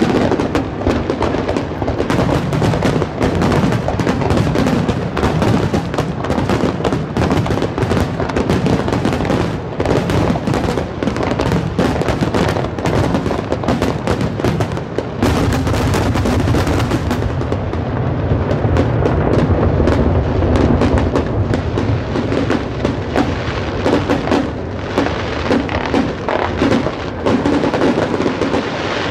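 Fireworks display: a dense, continuous barrage of shell bursts, bangs and crackle following one another without a break.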